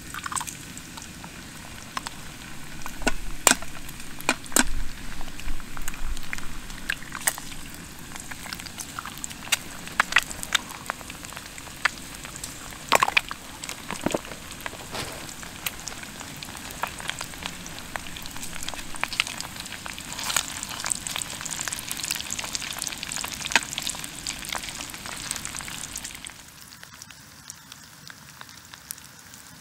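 Breakfast frying in a pan: a steady sizzle with many sharp pops and crackles, which grows busier in the last few seconds and then dies down suddenly near the end.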